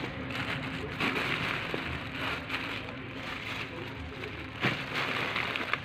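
Sealed plastic bags crinkling and rustling in irregular surges as hands press and shift them in a polystyrene box, with a faint steady low hum underneath.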